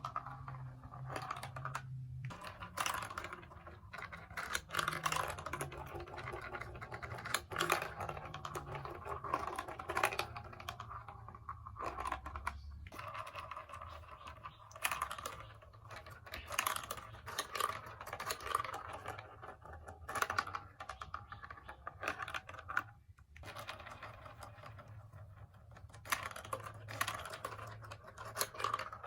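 Plastic marble run building blocks being handled and fitted together: irregular light clicks, clacks and rattles of hard plastic pieces, with some scraping and rustling in between.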